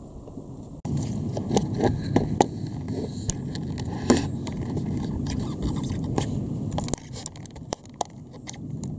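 Scraping and clicking noises, the kind made by a camera being handled, over a dense low rumbling noise. They start abruptly a little under a second in, with many sharp clicks, and ease off near the end.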